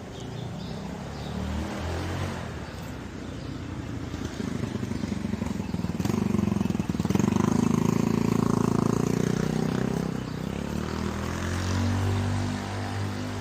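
Motor vehicle engine passing on a street, growing louder to a peak in the middle and then fading, with another low engine note near the end.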